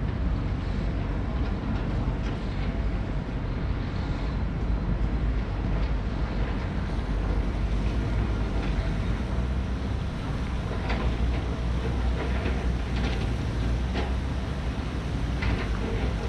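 Steady low rumble, with a few faint clicks in the second half.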